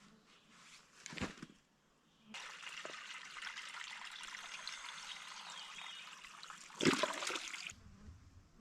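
Small stream of water trickling, starting abruptly about two seconds in and cutting off shortly before the end. There is a sharp knock about a second in and a louder one just before the cut.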